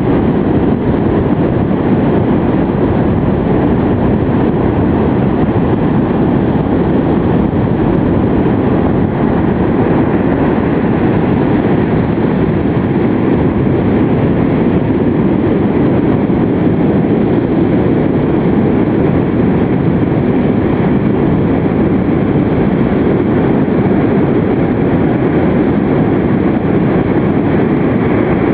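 Steady, loud roar of heavy storm surf and wind on the open shore, with big waves in rough, typhoon-driven seas; unbroken and even in level throughout.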